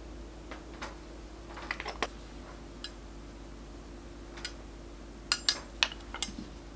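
Small steel baking tools, tweezers and offset spatulas, clicking and clinking as they are handled: a few light clicks about two seconds in, then a quick run of sharper clinks, the loudest, between about five and six seconds in.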